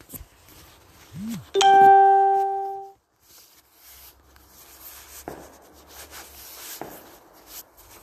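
A single loud ding: a bell-like chime with a steady pitch and ringing overtones, held for about a second and a half before it stops. It is followed by faint rustling and handling knocks.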